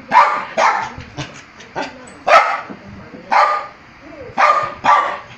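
A small long-haired dog barking repeatedly: about six sharp barks at uneven intervals, with a few shorter, quieter yaps between them.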